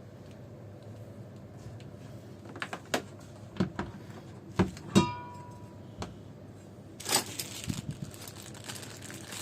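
Objects being handled: a string of sharp knocks and clicks, one about five seconds in ringing briefly like struck metal, then a denser scraping and rustling from about seven seconds in.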